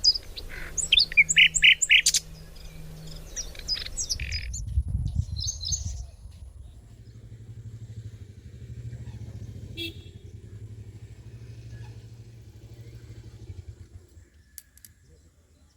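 Birds chirping loudly in quick high notes for the first few seconds, then a low steady rumble like a distant engine that fades out near the end.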